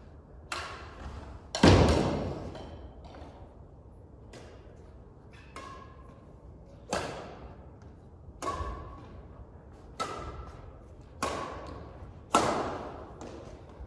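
Badminton rackets hitting a shuttlecock back and forth in a rally: a sharp hit about every second or so, each with a short ringing echo of the hall, the loudest about a second and a half in.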